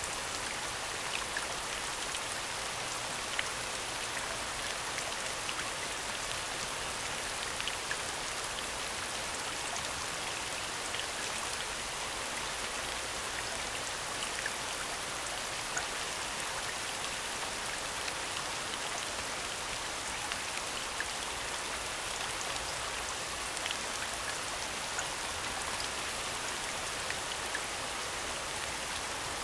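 Steady falling rain: an even hiss of rain with scattered individual drop ticks, recorded as a rain soundscape.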